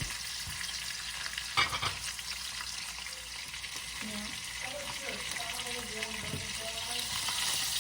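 Bone-in pork chops sizzling steadily as they brown in hot bacon grease in a skillet. There is a short, loud knock or clatter about one and a half seconds in.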